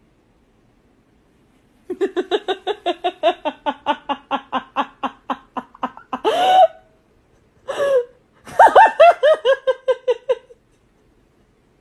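A person laughing hard in quick, even bursts for about four seconds, then two short rising-and-falling cries and another run of laughter.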